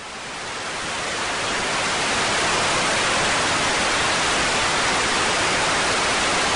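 Steady hiss of static-like noise, fading in over the first second or two and then holding level.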